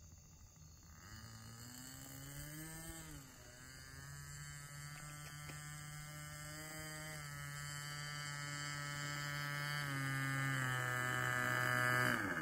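Engine of a SIG Astro Hog RC model airplane running at low throttle while it taxis on grass, a steady buzzing hum that grows louder as the plane comes closer. A short throttle blip comes about two to three seconds in, and the pitch eases down slightly near ten seconds in.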